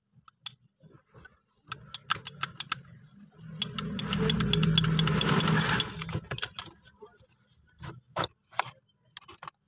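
Small electric drive motor and gearbox of a battery-powered children's ride-on toy running for about two and a half seconds, starting about three and a half seconds in. Plastic clicks of the switch and button before and after it.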